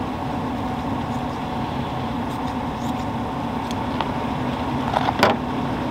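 Steady hum of a running motor, with a couple of short clicks near the end.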